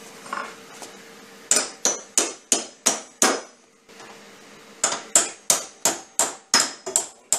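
Hammer striking the steel hinge pins, knocking the cut pins out of a Jeep door hinge. Quick blows, about three a second, each with a short metallic ring: a run of about six, a pause, then another run starting about five seconds in.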